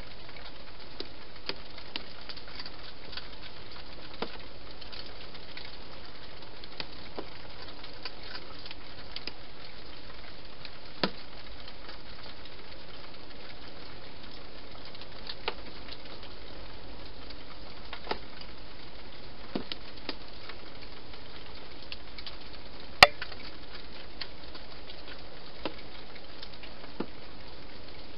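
A hedgehog eating from a bowl inside a plastic feeding box: irregular small crunching clicks over a steady hiss, with one much louder knock about 23 seconds in.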